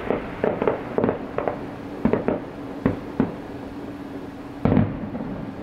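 Fireworks shells bursting in an irregular run of about a dozen sharp bangs, several in quick pairs, with the loudest burst near the end.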